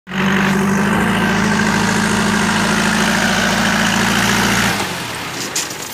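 Diesel engine of a JCB backhoe loader running with a steady low drone, which drops away about three-quarters of the way through, leaving a quieter rumble.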